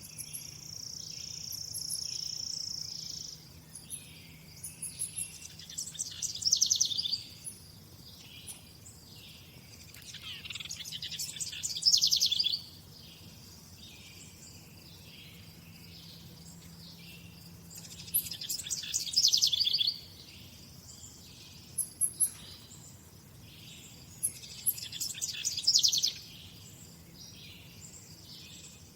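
A songbird singing the same loud song phrase four times, about every six to seven seconds; each phrase builds up and stops suddenly. Behind it runs a steady pulsing high chirp, about two pulses a second, and a held high whistle in the first few seconds.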